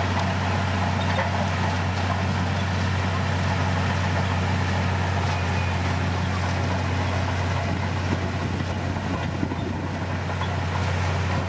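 Bulldozer's diesel engine running steadily, a constant low hum under a dense mechanical din.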